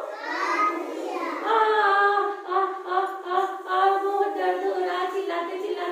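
High voices singing together in unison, without instruments, opening with a rising swoop.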